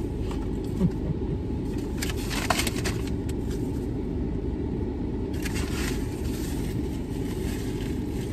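Steady low rumble of a parked car idling, with paper rustling from a fast-food bag and burger wrapper about two seconds in and again a little past the middle.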